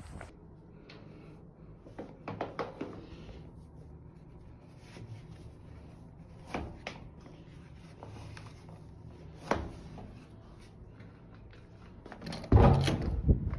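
Scattered knocks, clicks and rubbing of objects being handled indoors, like drawers or cupboards opening and closing, with a louder cluster of bumps near the end.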